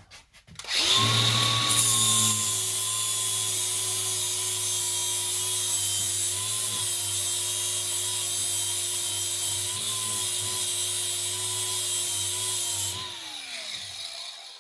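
Power grinder with a flap disc grinding the heads off school-bus ceiling-panel rivets. It spins up about a second in, grinds steadily with a high hiss, and is switched off near the end, its pitch falling as it spins down.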